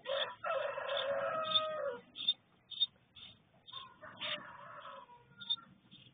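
A rooster crowing: one long crow near the start and a second, fainter crow about four seconds in. Short high bird chirps repeat about twice a second throughout.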